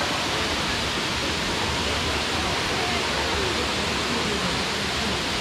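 Waterfall: water rushing over a bedrock slab and cascading down, a steady, even rush.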